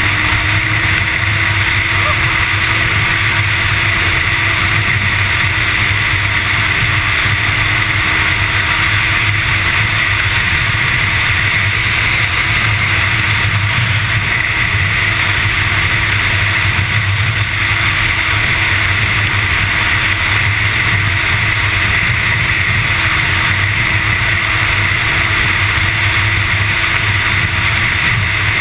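Snowmobile running flat out at high speed: a steady engine drone that holds its pitch, with a constant rush of wind and track noise over it.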